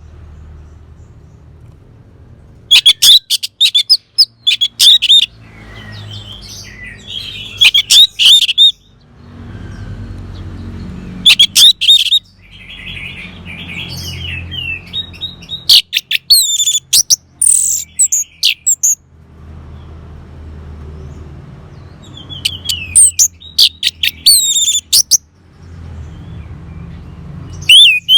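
Orange-headed thrush singing: loud bursts of rapid, varied whistled phrases every few seconds, with a low hum in the gaps between phrases.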